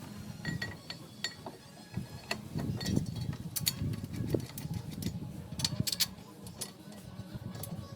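Scattered metallic clinks and taps of brake parts and hand tools being handled as the brakes are fitted back onto the wheel hub.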